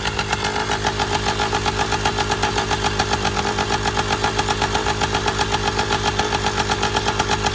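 Motorized bicycle's two-stroke kit engine, fitted with a billet high-compression cylinder head, idling with an even, rapid pulsing beat.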